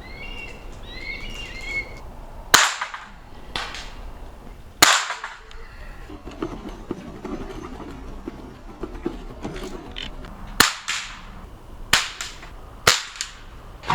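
Pre-charged pneumatic (PCP) air rifles firing: about half a dozen sharp, short cracks at uneven intervals, including two close together near the end.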